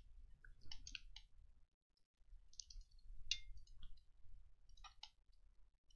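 Faint, scattered clicks of a computer mouse and keyboard, coming in small clusters every second or so.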